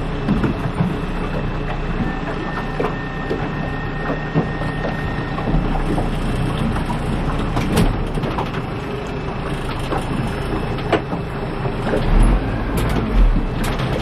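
A 115-horsepower outboard motor running steadily on a small flat-bottomed boat, with water noise around the hull and scattered sharp knocks.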